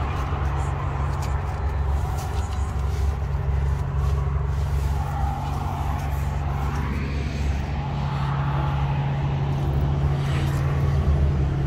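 Steady low engine hum of motor traffic, unchanging throughout.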